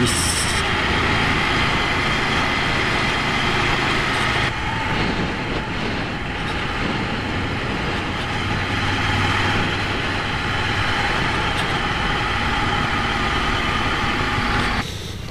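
Ducati Monster 797 motorcycle's air-cooled L-twin running steadily on the move, mixed with wind and road noise on the microphone. The sound drops away sharply near the end.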